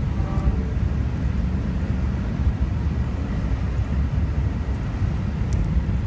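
Steady low rumble of a moving passenger train heard from inside a Budd dome car: wheels running on the rails.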